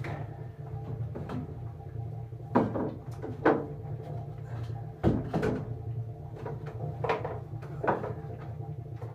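About five scattered knocks and clunks of basins and washing things being handled on wooden benches in a small wooden bath-house, over a steady low hum.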